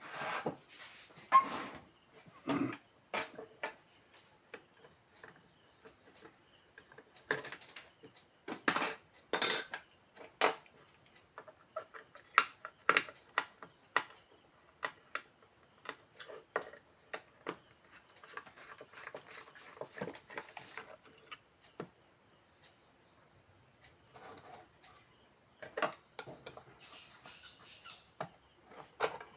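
Irregular clicks, taps and clinks of small tools and parts being handled while working on a mini Bluetooth speaker, with a pair of louder knocks about a third of the way in. Crickets trill steadily in the background.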